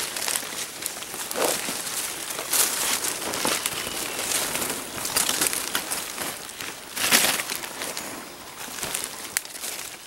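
Footsteps crunching through dry leaf litter and brushing through forest undergrowth: an irregular run of crackling steps and rustles, the loudest about seven seconds in.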